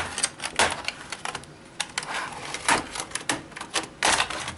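Plastic tabs of a Lenovo N22 Chromebook's keyboard-palmrest deck snapping loose as a pry tool works around the edge: irregular clicks and sharper snaps, several louder ones spread through.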